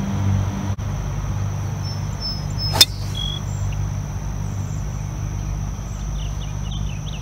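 Golf driver striking a ball off the tee: a single sharp crack of the clubhead on the ball about three seconds in.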